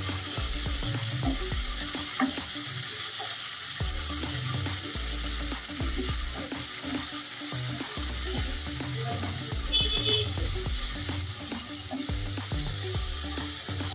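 Chopped tomato and onion frying in oil in a non-stick kadhai with a steady sizzle, while a spatula stirs them around the pan. The tomatoes are being sautéed.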